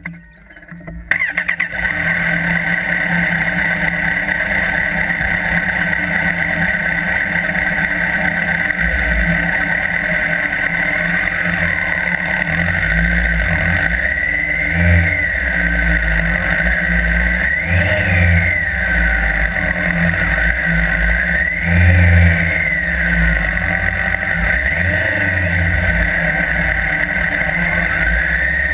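Police motorcycle engine running under a rider on a training course, recorded close up with rumble on the microphone. The sound comes in suddenly about a second in, and later the engine revs up and drops back again and again, every few seconds.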